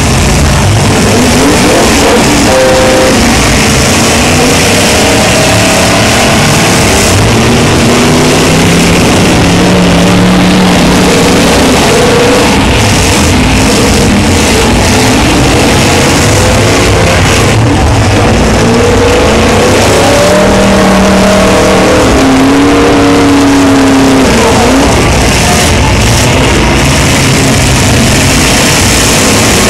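Engines of several demolition derby cars revving up and down again and again over a very loud wash of noise.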